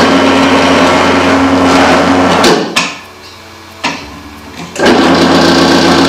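Robot-Coupe R301 Ultra food processor motor switched on and running steadily for about two and a half seconds, then stopping with a couple of clicks. After another click near four seconds, the motor starts again about five seconds in, as the lowered pusher lever closes the safety stop/start switch.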